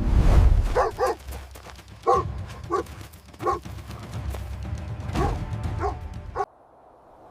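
A dog barking, a run of about eight short barks spaced unevenly, over background music with a low rumble; everything cuts off abruptly near the end.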